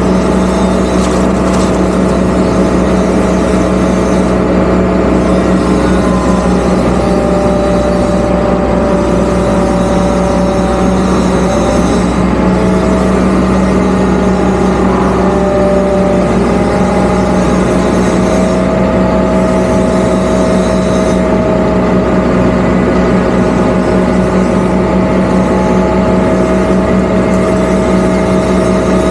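Zoomlion ZE370E excavator running steadily: a constant loud diesel drone with a hydraulic whine that drifts slightly in pitch as the boom lifts the mulcher head.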